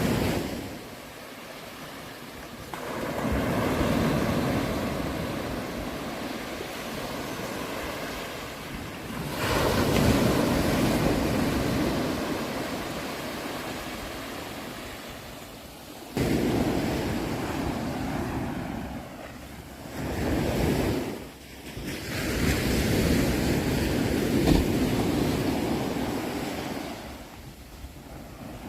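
Sea waves breaking and washing up on a shore, one after another, each surge swelling and then slowly falling away, about every five to seven seconds.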